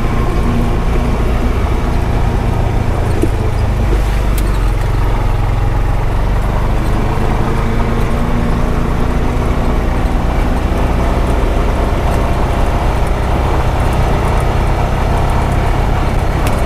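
Honda Pioneer 520 side-by-side's single-cylinder engine running steadily while driving on a rough dirt road, with a constant low rumble and occasional light clicks and rattles.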